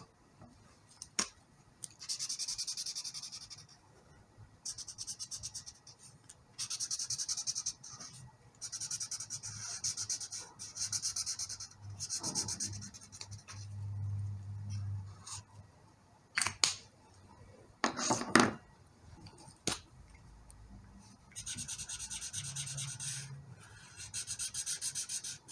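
Colouring tool scrubbing on paper in rapid short strokes, filling in a drawing. The strokes come in bursts of one to two seconds with brief pauses. A quieter stretch past the middle holds a few sharp clicks.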